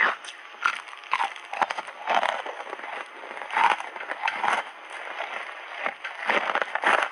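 Ice chips coated in matcha and milk powder crunched between the teeth close to a clip-on microphone: a string of irregular crisp crunches, with the loudest ones about two, three and a half and four and a half seconds in.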